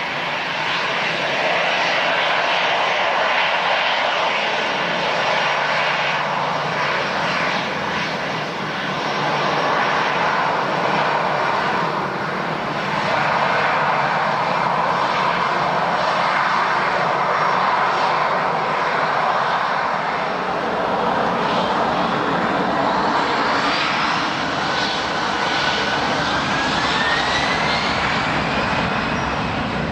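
Jet airliner's engines running loud and steady, with a whine that rises in pitch over the last few seconds.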